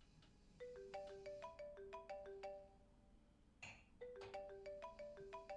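Mobile phone ringtone: a marimba-like melody of quick, short notes, played twice with a pause between, and a brief rustle in the pause.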